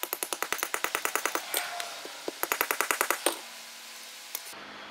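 Socket ratchet wrench clicking in two quick runs of rapid, even clicks, about a dozen a second, as bolts are worked off a scooter engine's gearbox case half.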